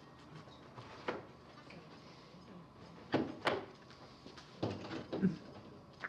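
A few short knocks and clatters of tools or objects being handled and set down: one about a second in, two close together around three seconds in, and a few more near five seconds, with quiet between.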